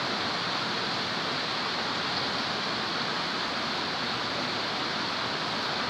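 Steady, even hiss of heavy rain, with no breaks or changes.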